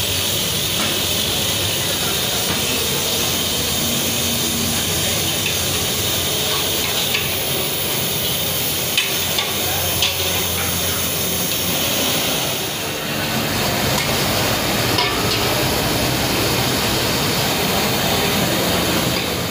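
Steady hissing kitchen noise from pots on open fires, with a few short metal clinks of a ladle against an aluminium degh, about seven, nine and ten seconds in and again near fifteen seconds.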